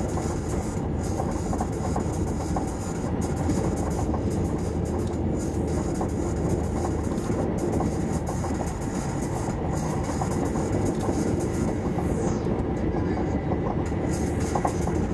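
Passenger-cabin noise of an SJ 3000 (X55) electric multiple unit running at speed: a steady rumble of wheels on rail with a hiss over it. The hiss briefly drops away about twelve seconds in.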